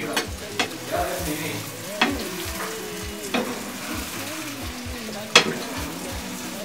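Omelette mixture sizzling in a frying pan while a spoon stirs it. The spoon knocks sharply against the pan several times, loudest about five seconds in.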